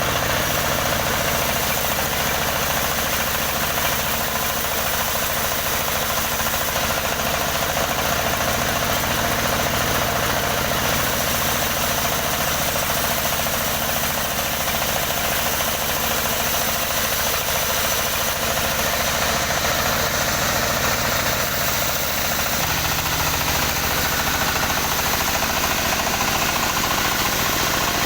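Engine of a motorised wood saw running steadily, its low tones shifting about 22 seconds in as the load changes.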